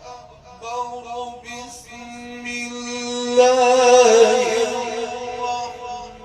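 A male Qur'an reciter's voice in long, ornamented melodic phrases of tajweed recitation, held notes bending in pitch. It swells louder about three and a half seconds in.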